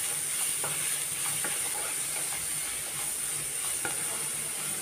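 Chopped onions sizzling steadily in hot coconut oil in a nonstick kadai as a spatula stirs them, with a few light scrapes and taps of the spatula on the pan. The onions have just gone in and are starting to sauté.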